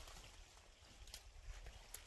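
Near silence: faint outdoor quiet with a few soft ticks, about a second in and again near the end.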